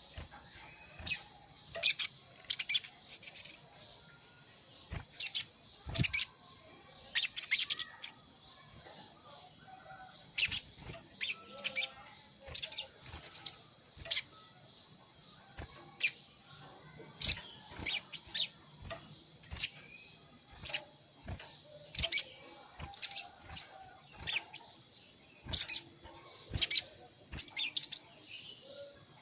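Little spiderhunter (sogok ontong) calling: short, sharp high chirps in irregular clusters of one to four notes, a call of the kind used to challenge a rival or call a mate. A steady high insect buzz runs underneath.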